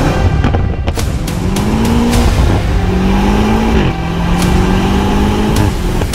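Car engine accelerating hard through the gears, its pitch climbing and then dropping sharply at each upshift, three times over.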